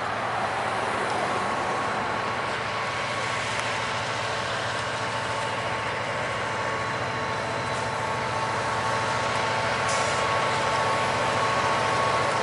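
Diesel freight locomotives approaching slowly, engines running with a steady rumble that grows gradually louder, and a thin steady whine from about a second in.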